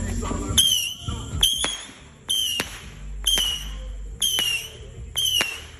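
Fireworks going off in a steady series, about one shot a second. Each shot is a short whistle followed by a sharp crack.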